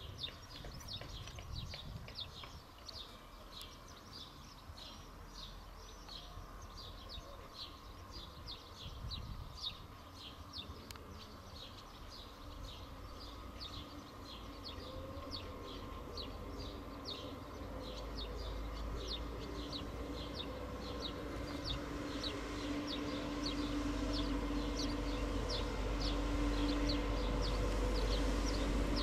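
A Trenitalia Pop electric multiple unit approaching slowly. Its low running rumble and a steady hum grow louder over the last third. Throughout, a regular high chirping repeats about twice a second.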